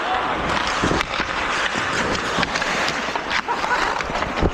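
Ice hockey play on the rink: skates scraping the ice under a steady rush of rink noise, with a few sharp clacks of sticks and puck and faint distant shouts.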